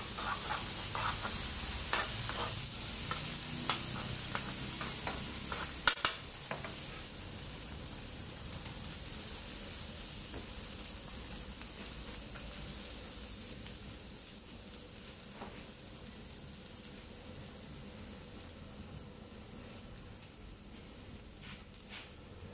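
Egg and chopped vegetables sizzling on a hot flat griddle, with a metal ladle scraping and knocking on the plate through the first several seconds; the two sharpest knocks come about six seconds in. After that the sizzle carries on more quietly and slowly fades.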